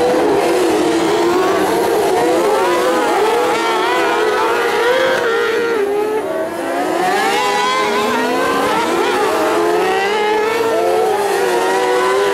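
Engines of several autocross racing buggies revving hard together through a dirt-track corner, their overlapping pitches rising and falling constantly as they accelerate and shift.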